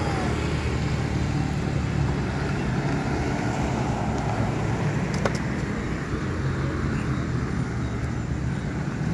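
Road traffic at an intersection: a steady engine hum of cars and motorcycles, with a pickup truck driving past about four seconds in.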